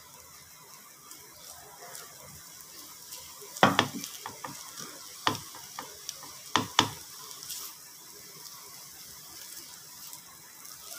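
Silicone spatula stirring and scraping boiled potato pieces around a metal frying pan over a faint sizzle of oil. A few sharp knocks of the spatula against the pan stand out, around four, five and seven seconds in.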